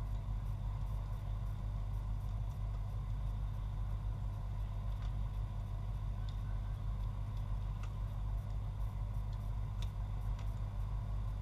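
Steady low rumble with a faint high hum, and a few faint knocks; one about ten seconds in is a football being kicked long.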